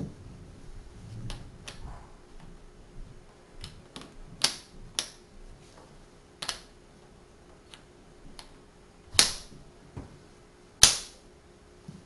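Tegu magnetic wooden blocks clacking as they are snapped onto one another one by one: about a dozen sharp, irregularly spaced clicks, the two loudest near the end.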